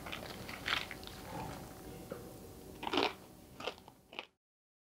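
A person crunching and chewing crisp fried masala green peas (hara matar namkeen): a handful of short, sharp crunches spread out, cut off abruptly near the end.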